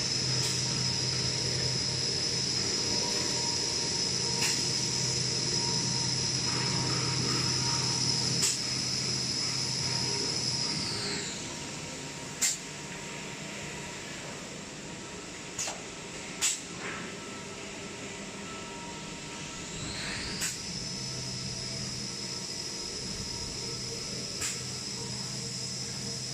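Toilet-paper production-line machinery running: a motor-driven high whine over a low hum winds down about eleven seconds in and winds back up near the end. A sharp click or knock comes every few seconds throughout.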